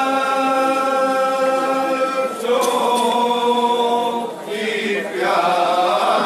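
A group of men chanting a Shia noha (lament) together without instruments, holding long drawn-out notes. The note changes about two and a half seconds in, and after a brief pause a new phrase starts near the end.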